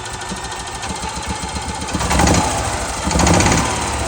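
EFI EZGO gas golf cart engine cranked in three short surges over a steady mechanical chugging, not catching: the ignition coil is giving no spark.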